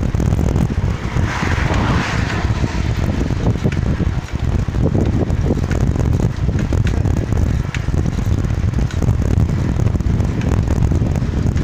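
Wind buffeting the microphone of a camera carried on a moving bicycle, a steady low rumble with scattered small clicks and rattles from the ride; a brief hiss rises about a second in and fades soon after.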